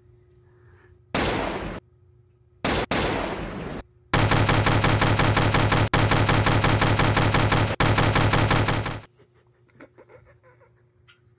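Gunfire sound effects: two short bursts of shots, then about five seconds of rapid, steady machine-gun fire that cuts off suddenly.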